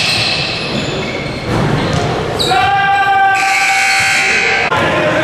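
Basketball bouncing on a gym floor amid the echoing din of a large hall, with voices. About two and a half seconds in, a steady electronic scoreboard buzzer sounds for about two seconds and cuts off sharply.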